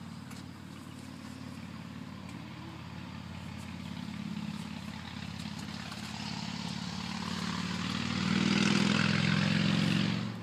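An engine droning steadily and slowly growing louder, loudest over the last two seconds, then dropping away suddenly near the end.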